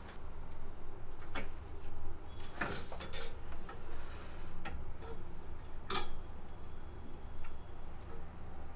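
Scattered light clicks and knocks, about half a dozen at uneven intervals, of things being handled at a clothes wardrobe, over a low steady hum.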